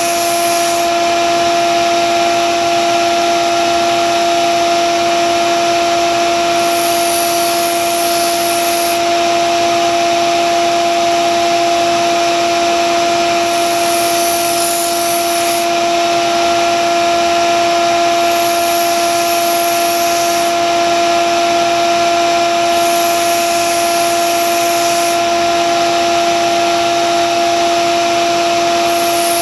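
Grizzly belt sander running with a steady motor hum, while a steel Wüsthof kitchen knife blade is drawn across the moving belt in repeated passes. Each pass adds about two seconds of high grinding hiss, about six passes in all, as the edge is sharpened.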